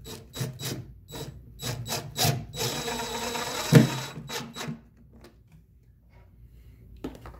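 Cordless DeWalt impact driver driving a wood screw into OSB board: a few short trigger bursts to start the screw, then a longer run of about a second and a half as the screw drives home, stopping about five seconds in.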